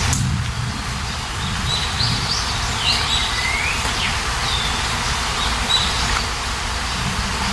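Steady rain falling, with birds chirping over it in a few short sweeping calls, mostly in the middle.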